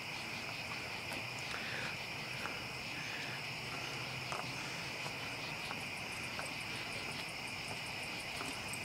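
A steady chorus of insects trilling, with a fine, even pulse. A few faint clicks sound over it.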